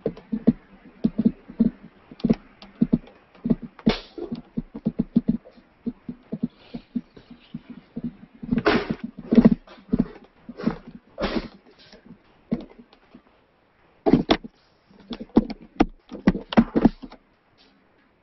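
Objects being handled and set down on a cluttered work table: an irregular run of knocks, clicks and rustles, busiest in the middle and again near the end.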